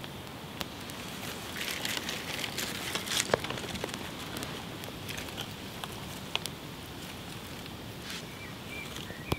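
Small fire of papery bark tinder crackling and snapping as it catches, with scattered sharp clicks and a busier burst of crackling a couple of seconds in. A bird chirps near the end.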